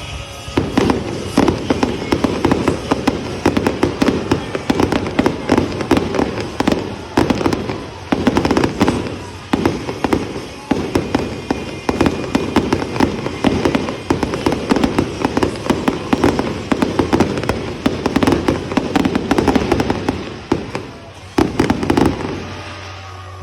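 Fireworks going off in a rapid, dense run of bangs and crackles, lasting about twenty seconds and stopping shortly before the end.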